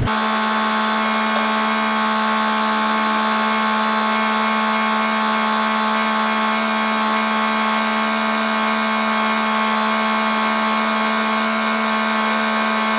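Kukje EF475 tractor's diesel engine running steadily, heard as an unchanging drone with one strong hum note and many fainter steady tones above it, with no rise or fall. The drone starts and stops abruptly.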